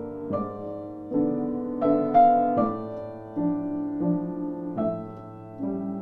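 Soft background piano music: slow chords struck a little more often than once a second, each left to ring and fade.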